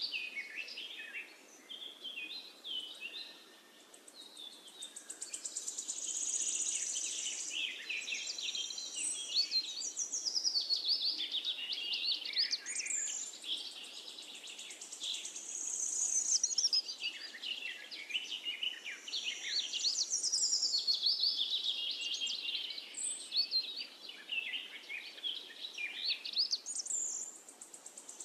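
Birds chirping and singing, with high warbling phrases and fast trills overlapping and coming and going.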